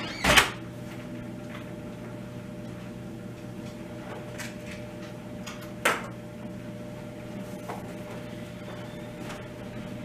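Diesel engine of a truck-mounted knuckleboom grapple loader running steadily under hydraulic load as the boom swings and the grapple lowers. There are two loud knocks, one right at the start and one about six seconds in.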